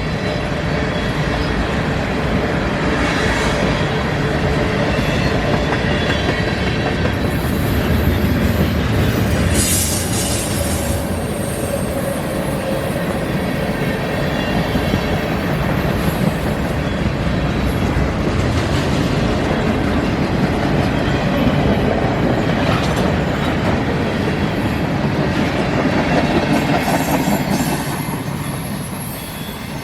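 Freight cars of a manifest train rolling past, wheels rumbling and clacking over the rail joints, with brief high wheel squeals several times. The noise drops off near the end as the train passes.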